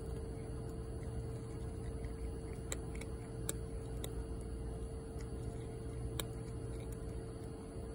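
Dilute calico cat crunching dry kibble: a scattering of sharp, irregular crunching clicks over a steady hum.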